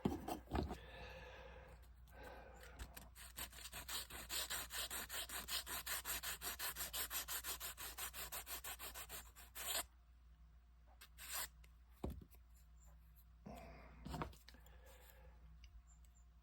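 Hand sanding of a small wooden plank: quick back-and-forth rubbing strokes, about four a second, that build up and stop abruptly about ten seconds in. A few light taps and knocks follow.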